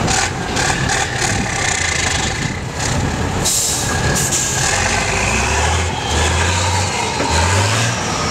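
Heavy multi-axle off-road trial truck's diesel engine running under load as the truck crawls over rough ground, its note rising in steps in the last few seconds. A brief hiss cuts in about halfway.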